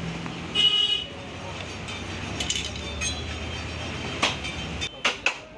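Street ambience with a vehicle engine running and a short vehicle horn toot about half a second in, which is the loudest sound. Several sharp knocks and clicks follow in the second half.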